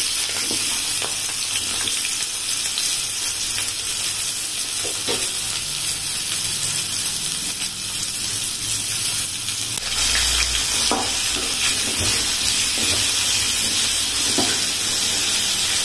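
Diced chayote sizzling in hot oil in a kadai: a steady frying hiss that grows a little louder about ten seconds in, with scattered light clicks of a spatula stirring the pieces.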